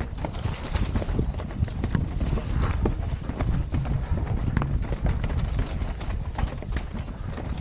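Mountain bike clattering down a rocky trail: a rapid, irregular run of knocks and rattles as the tyres go over stones, over a heavy low rumble of wind on the camera's microphone.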